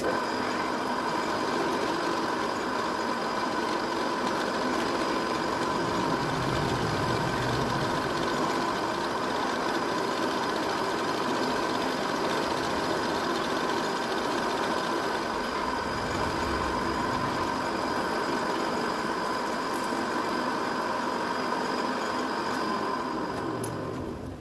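Drill press motor running steadily with a constant whine while its bit cuts a block fed along in a cross-slide vise.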